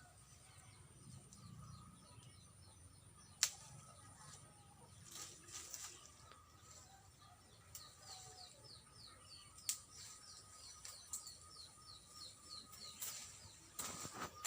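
Birds chirping faintly in quick runs of short notes, with a few sharp clicks and brief rustles; the loudest click comes about three seconds in.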